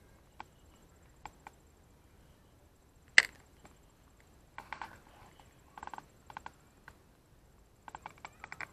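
Scattered clicks and ticks from a spinning rod and reel being handled while a lure is worked, with one sharp snap about three seconds in and short runs of rapid ticking in the second half.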